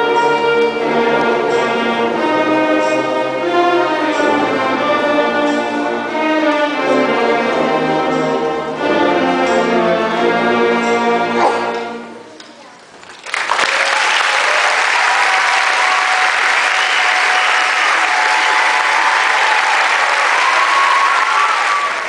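School beginning concert band of flutes, clarinets, saxophones and brass playing the final bars of a piece, which ends about twelve seconds in. Then the audience applauds until the end.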